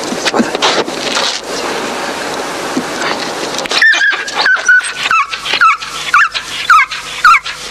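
Explosives-detection dog scrabbling and rustling about inside a car, then giving a run of about eight short, high-pitched yelping whines. This is the excited 'talking' this dog does when she finds the explosive-scented object.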